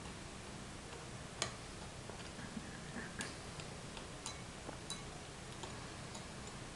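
Metal teaspoon faintly clinking and ticking against a drinking glass while stirring sugar into cold water. The sharp ticks come at irregular intervals, about six of them, over a low steady hum.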